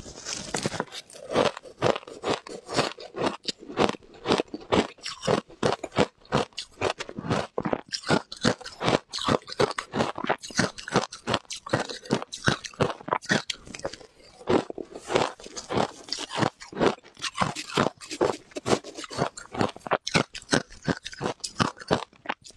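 A person biting and chewing ice, a quick run of crisp crunches, several a second, with short pauses between bites.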